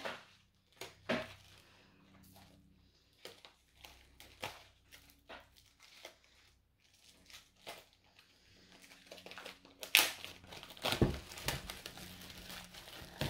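Packaging being opened by hand: scattered crinkling and crackling with some tearing, louder for a moment about ten seconds in.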